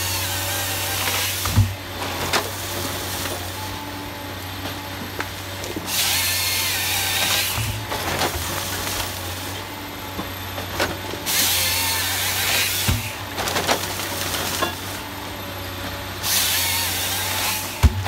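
Forestry harvester head cutting a log to length with its hydraulic chainsaw bar: four saw cuts, each a loud high whine of about two seconds ending in a knock, over the steady running of the machine's diesel engine and hydraulics as the stem is fed through between cuts.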